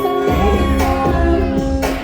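Loud K-pop dance track through a concert sound system, recorded from the audience: held synth chords over a thudding bass beat, with a woman's voice singing the melody.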